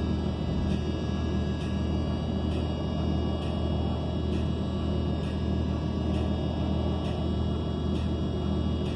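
Cabin sound of a 2020 ENC Axess BRT city bus under way: its Cummins Westport L9N natural-gas engine and driveline give a steady low drone, with steady high whining tones over it. A light click repeats a little faster than once a second.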